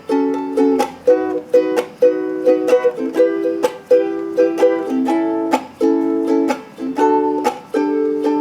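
Pili Koko ukulele being strummed, chords struck about twice a second and ringing between strums, the chords changing every second or so.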